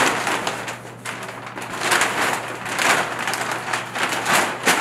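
Large brown paper yard-waste bag being unfolded and shaken open, the stiff paper rustling and crinkling with sharp crackles.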